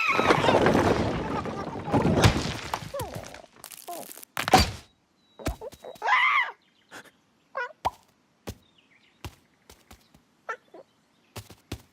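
Cartoon slapstick sound effects. A loud noisy rush fills the first three seconds or so, then comes a string of scattered knocks and clicks, broken by a few short squawk-like calls from a bird character.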